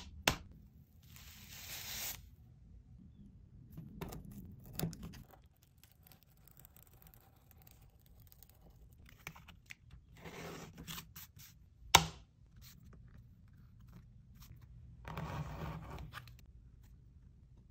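Leather being cut and worked with hand tools: about four scraping, tearing strokes of a blade or chisel through leather, with a single sharp knock about twelve seconds in.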